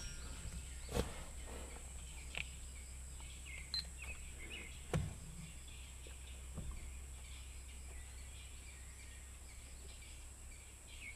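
Birds chirping faintly in short repeated chirps over a low steady hum, with a few soft knocks and clicks from the rifle and scope being handled, the loudest about five seconds in.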